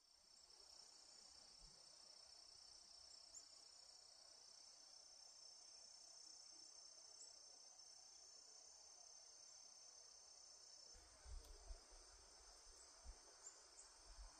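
Faint, steady, high-pitched trilling of an insect chorus in late summer. A few low thumps on the microphone come in near the end.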